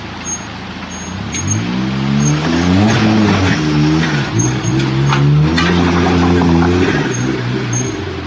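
Suzuki Jimny JB23's 660 cc turbocharged three-cylinder engine, with automatic transmission, revving up and down under load as it crawls over creek-bed boulders, then dropping back to idle near the end. A few sharp knocks sound about a second in and again around the middle.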